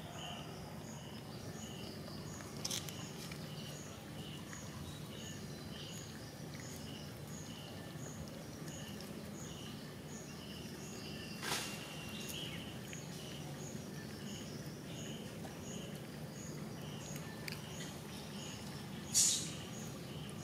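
Insect chirping in an even rhythm, about two chirps a second, over a steady low background hum. Three brief sharp noises break in, the loudest near the end.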